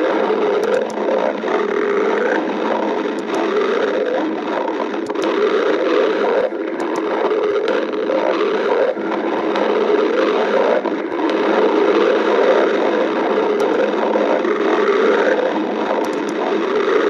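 A hungry person's stomach growling and gurgling without a break, with a few faint clicks.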